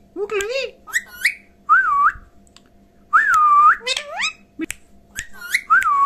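Male Indian ringneck parakeet chattering and whistling: a run of short warbling, speech-like calls broken by two longer wavering whistles, one about two seconds in and a longer one at about three seconds.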